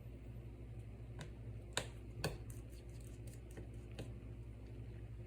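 Small clicks and taps of tools and parts being worked on a phone's internals, with two sharper clicks about two seconds in, over a steady low hum.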